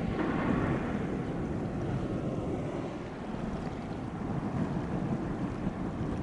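Harbour ambience: steady low rumble of wind on the microphone with water lapping, a little more hiss in the first second.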